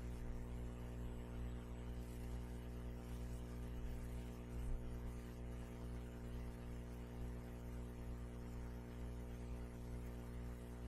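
Steady electrical hum with a stack of evenly spaced overtones, and a brief low thump a little before halfway through.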